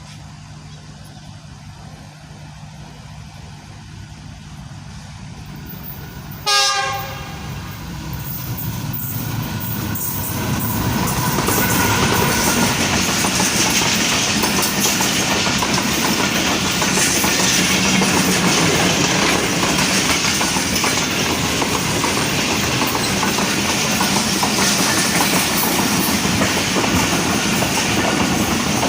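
Express passenger train passing at speed behind a Pakistan Railways GEU-40 diesel-electric locomotive: the locomotive's engine hum nears, a short horn blast sounds about six seconds in, then the loud, steady rush and clickety-clack of the coaches' wheels takes over.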